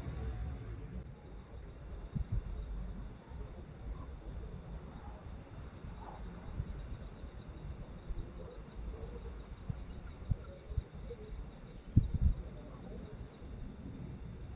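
Night insects chirping: a steady high-pitched trill with a pulsed chirp repeating a few times a second over it, and low rumbling noise underneath. A couple of dull thumps about twelve seconds in are the loudest sound.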